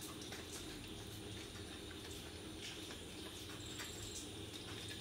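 Faint gritty rustling and a few soft ticks of fingers pressing semolina onto breadfruit slices in a steel bowl, over a low steady hum.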